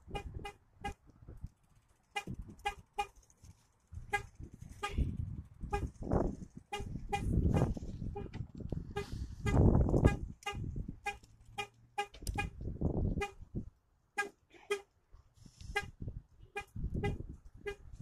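A 2015 Chevrolet Cruze's horn giving short chirps over and over, in quick runs with brief pauses, from its car alarm button being pressed again and again. A low rumbling noise comes and goes underneath, loudest about halfway through.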